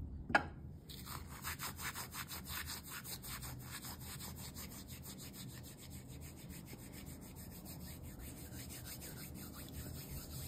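Dried oregano being crushed by rubbing it between the palms: a quick, steady run of dry rubbing strokes, several a second, after a single sharp knock shortly after the start.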